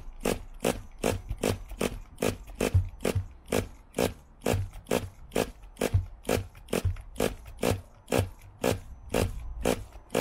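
Nitro RC truck engine being pull-started with the glow igniter fitted: quick short pulls of the recoil starter, two or three a second, each a brief rasp as the cord turns the engine over, with the engine not yet catching.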